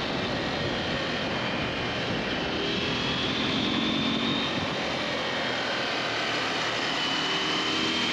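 KTM 890 SMT's parallel-twin engine running on the move, under a steady rush of wind, with a faint engine note that rises and fades in pitch now and then.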